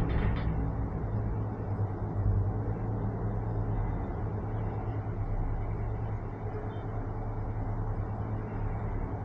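IFS Cloud Cable Car gondola travelling along its cable: a steady low rumble and hum. A rapid mechanical clatter from the running gear stops about half a second in.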